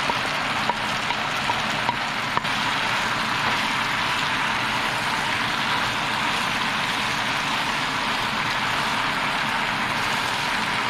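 Stir-fry of pasta, beef, carrot and celery sizzling in a hot oiled pan: a steady hiss, with a few light clicks in the first couple of seconds.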